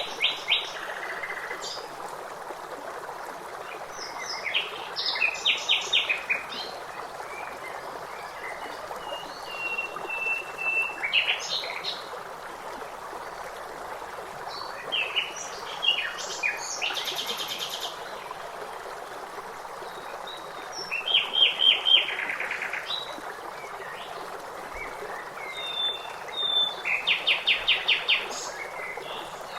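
Songbirds singing in short phrases of rapid chirps and trills, a new phrase every few seconds, with one drawn-out whistle about a third of the way in, over a steady rush of running water.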